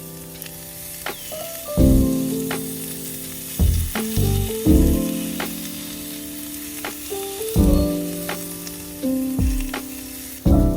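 Slow instrumental background music, single piano-like notes and chords ringing out one after another, over a steady sizzle of food frying in a pan.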